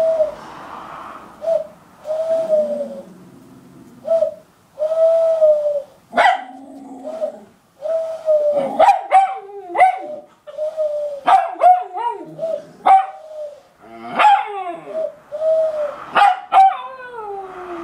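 West Highland white terrier howling: a run of held, wolf-like notes, then sharp barks and yips among the howls from about six seconds in, and a long falling howl near the end.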